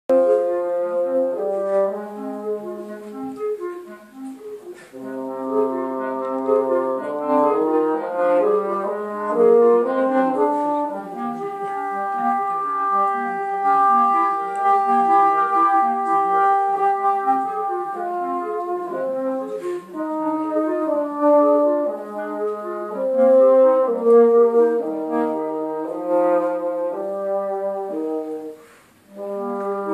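Clarinet and bassoon duet playing classical music: the bassoon on a low moving line beneath the clarinet's melody. Both stop briefly just before the end, then resume.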